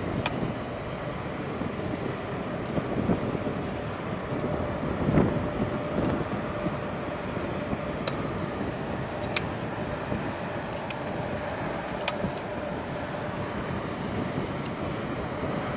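Wind buffeting the microphone in gusts, over a faint steady engine hum. A few faint sharp clicks come through near the middle.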